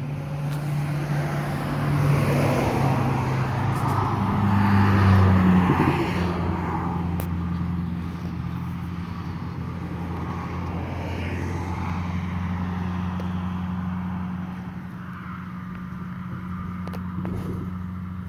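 Heavy truck's diesel engine running close by at low speed, louder for a few seconds near the start, then settling into a steady low drone.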